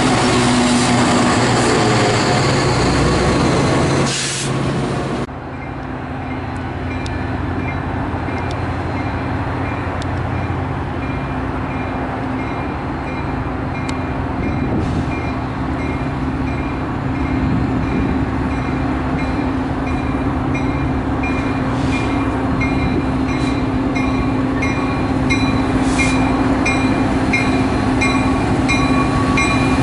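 Metra commuter train at the station: a steady rumble of the locomotive and rolling cars under a low hum, with a faint high tick repeating more than once a second. A louder rushing noise in the first five seconds stops abruptly.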